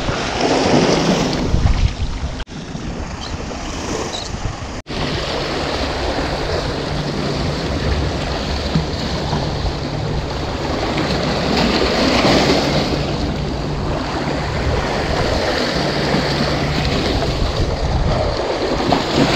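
Wind buffeting a GoPro action-camera microphone over small waves washing against shoreline rocks: a steady, loud rush with a low rumble, broken by two very short dropouts within the first five seconds.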